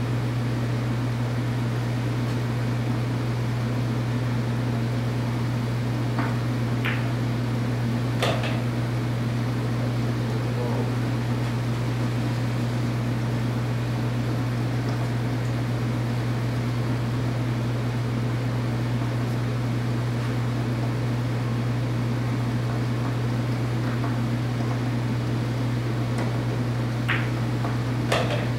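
Pool balls clicking as shots are played: the cue striking the cue ball and the balls knocking together, in a short group of clicks about six to eight seconds in and another near the end. A steady low hum runs underneath throughout.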